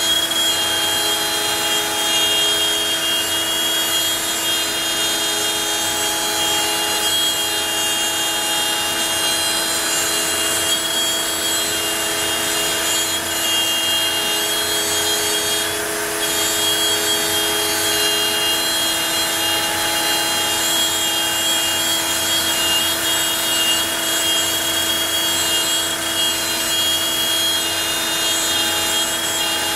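Onefinity CNC router's spindle running steadily as its bit cuts the stock: a steady whine over a rushing noise, with a brief dip about 16 seconds in.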